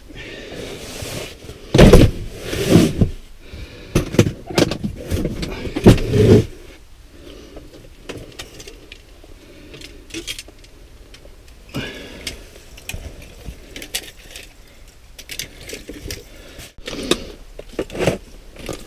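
Fishing gear being handled: rods, reels and hard cases clattering, knocking and rattling, with scrapes. The loudest knocks come in the first seven seconds or so, then lighter clicks and rattles.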